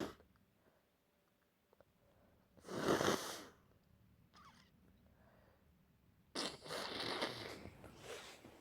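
A person with a head cold blowing a congested nose into a tissue: one short, hard blow about three seconds in, then a longer blow from about six and a half seconds in.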